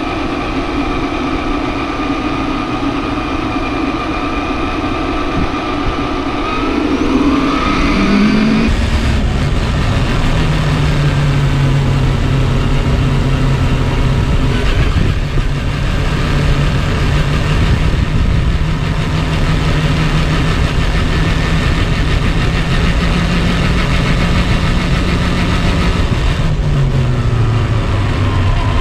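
A motor running steadily with a pitched whine; its pitch climbs and the sound grows louder about eight seconds in, holds a steady lower tone, and slides down near the end.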